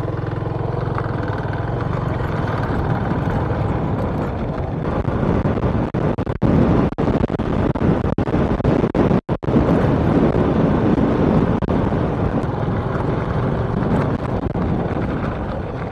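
Motorcycle engine running steadily at road speed, a low hum under a rushing noise, with a few brief dropouts in the middle.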